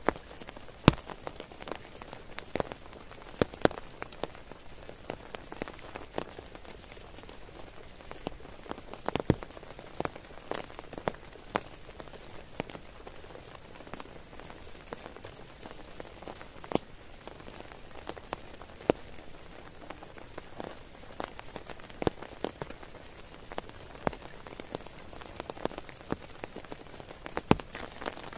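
Insects trilling steadily at a high pitch, with rain dripping and tapping irregularly on nearby surfaces in scattered sharp drops.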